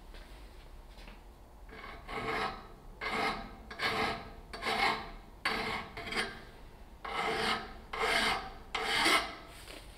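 Hand file rasping over a cast-metal part of a Bilstein car jack held in a vise. The strokes start about two seconds in: about nine in all, roughly one a second, with a short pause midway.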